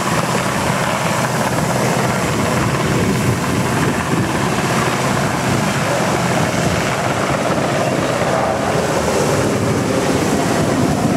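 RAF Sea King search-and-rescue helicopter just after lift-off, its rotors and turbine engines running in a steady, loud wash of noise.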